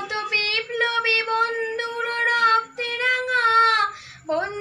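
A young girl singing solo, holding long notes that slide between pitches, with a short breath about four seconds in.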